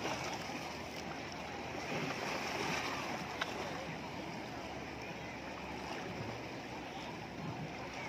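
Sea waves surging and splashing against concrete breakwater blocks and rocks, a steady wash that swells around two to three seconds in, with distant beachgoers' voices behind it.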